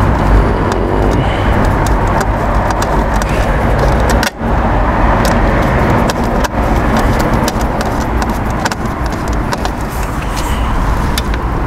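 Hand screwdriver working the screws of a car number plate, giving scattered light clicks, under a loud steady rushing noise.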